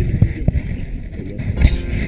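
Wind rumbling on a handheld camera's microphone, mixed with handling knocks as the camera is grabbed and moved.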